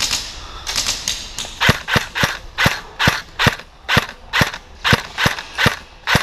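Airsoft rifle fired in quick semi-automatic single shots, about fourteen sharp shots at roughly two to three a second.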